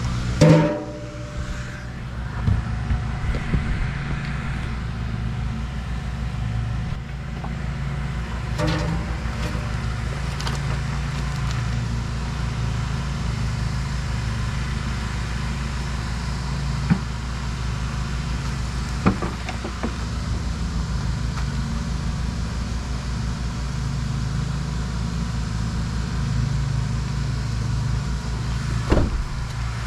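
A steady low machine hum, like a motor running, with a few short sharp clicks and knocks, about three of them in the second half.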